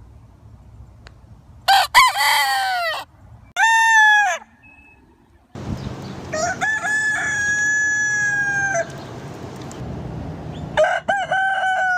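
Roosters crowing: four crows, the longest one drawn out and held at a steady pitch near the middle, and another crow starting near the end.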